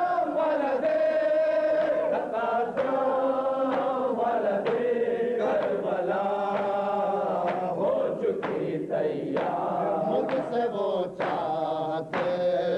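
A man chanting an Urdu Karbala elegy in long, drawn-out notes that glide up and down.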